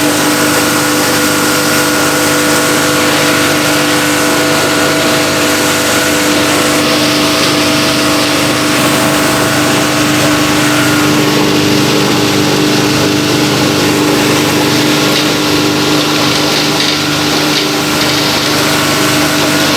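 Wet waste chopper-grinder with rotary blades running steadily: a loud, continuous machine hum with several held tones over a hiss, whose tones shift slightly about halfway through.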